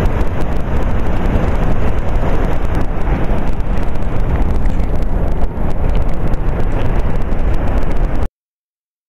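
Steady roar of Niagara Falls' rushing water mixed with wind buffeting the microphone, heavy in the low end. It cuts off suddenly about eight seconds in.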